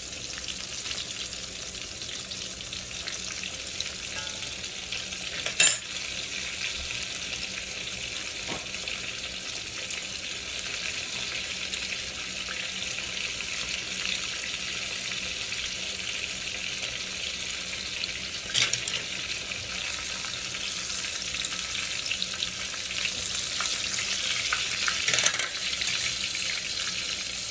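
Breaded chicken nuggets deep-frying in hot oil, a steady crackling sizzle: the second fry that crisps and browns the outside. Three sharp clicks cut in, about six, eighteen and twenty-five seconds in.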